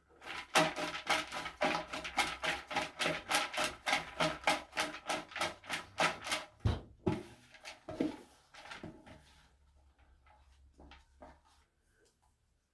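A raffle drawing device turning with a rapid, even run of clicks, about five a second, that spaces out and stops with a low thump about six and a half seconds in, followed by faint handling sounds.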